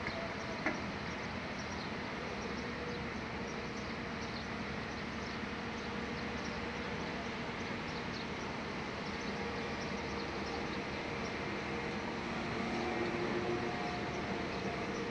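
Steady drone of a running engine, even throughout, with one short click under a second in.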